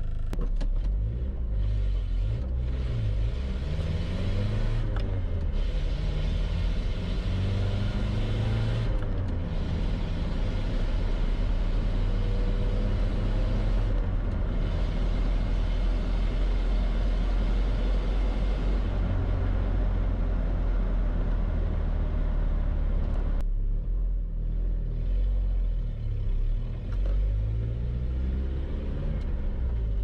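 Nissan D21 pickup's 2.4-litre Z24 four-cylinder engine heard from inside the cab while driving, the engine note rising and falling as it accelerates through the gears, over a steady road and tyre hiss. About two-thirds of the way through the hiss drops away as the truck slows, then the engine climbs again.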